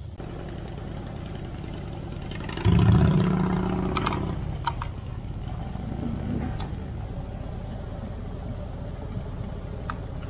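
Motor vehicle engine rumbling steadily. About two and a half seconds in, a much louder engine sound starts suddenly and fades away over the next few seconds.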